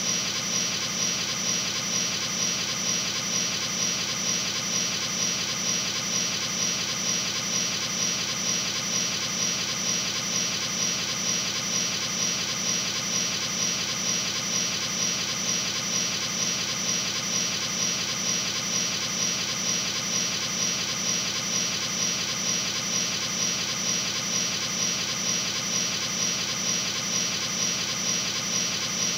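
A steady droning hum with a high-pitched whine running through it, pulsing evenly and never changing.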